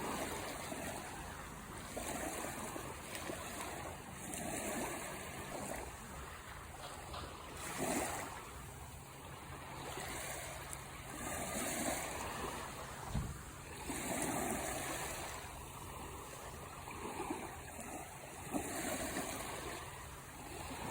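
Sea waves washing in, swelling and fading every two to three seconds. There is one brief knock about thirteen seconds in.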